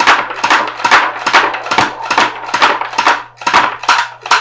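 HK P30 electric blowback airsoft pistol fired semi-automatically, about ten shots in an even rhythm of a little over two a second. The shots stop just before the end as the magazine runs empty.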